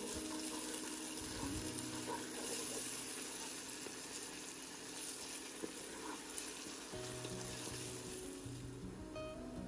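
Background music with steady stepped bass notes, under a continuous crackling hiss like food sizzling.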